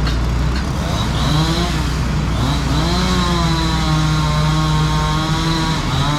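Two-stroke chainsaw revving up and down, its pitch rising and falling, over the steady low hum of another engine running.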